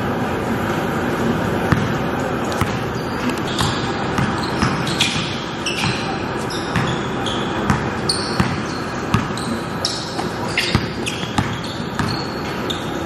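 Basketball bouncing on an indoor court floor in irregular dribbles and impacts, with short high squeaks of sneakers on the floor.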